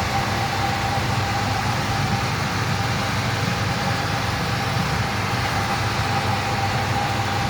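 VAZ 2114 car engine running steadily at idle.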